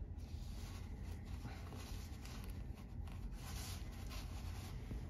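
Faint rubbing and rustling of fingers working a small part, with a few light clicks, over a steady low background hum.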